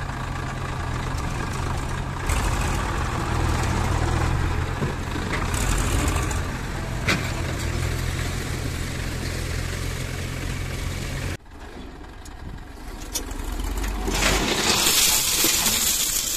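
Farm tractor's diesel engine running steadily as it hauls a stone-laden trolley; it cuts off suddenly about eleven seconds in. Near the end, a loud rushing of stones sliding out of the tipping trolley.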